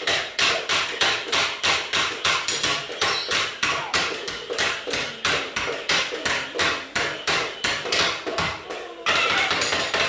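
Rapid, regular knocking, about four sharp hits a second, like tapping on wood. About nine seconds in it gives way to a steady rushing noise.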